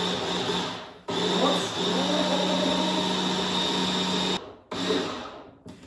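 Handheld immersion (stick) blender running in a beaker, blitzing a liquid marinade of orange juice, olive oil and garlic cloves. It stops briefly about a second in, runs steadily for about three more seconds, then gives one short final pulse.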